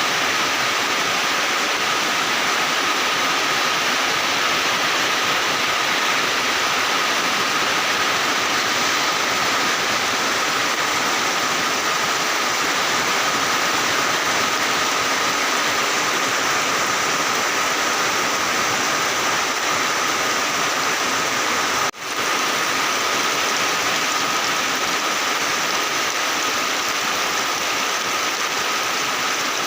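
Heavy rain pouring down in a steady, dense hiss, with a thin steady high tone running through it. The sound cuts out for an instant about two-thirds of the way through.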